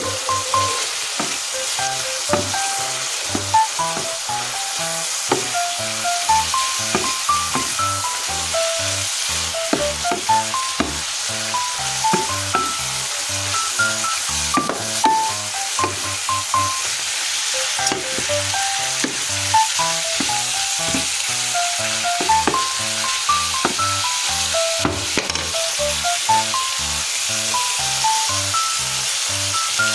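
Beef, onion and string beans sizzling as they stir-fry in a pan, turned now and then with a wooden spatula, over background music with a steady beat.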